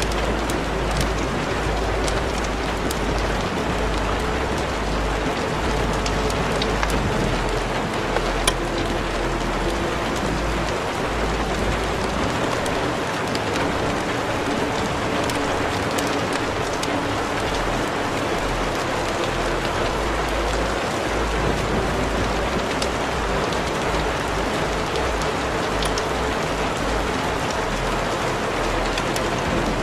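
Steady, rain-like hiss with scattered crackles and clicks, over faint sustained low tones.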